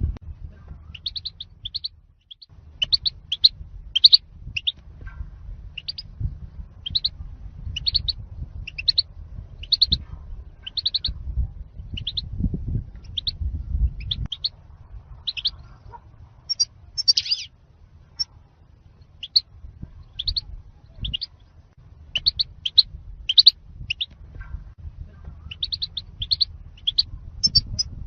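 European goldfinch song in the zalzal style: short, high chirps about once or twice a second, over a low background rumble.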